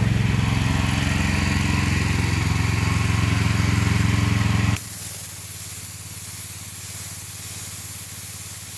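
Gas pressure washer running, its small engine loud and steady while the pump sprays water under pressure. About halfway through the engine sound drops off abruptly, leaving mainly the steady hiss of the spray with the engine faint under it. The pump is working and building pressure on the newly fitted carburetor.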